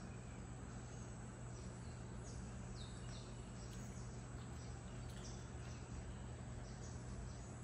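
Small bird chirping in short, high, falling notes about once a second over a quiet steady low hum.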